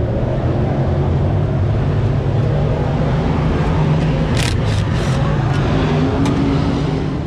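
A steady drone of race car engines running, with three short whirs of a cordless drill about four and a half seconds in as a screw is driven into the radiator mount, followed by a couple of faint clicks.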